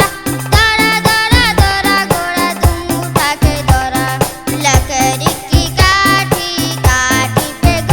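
Hindi nursery-rhyme music: a sung melody with wavering, vibrato-like notes over a bouncy bass line and a steady beat.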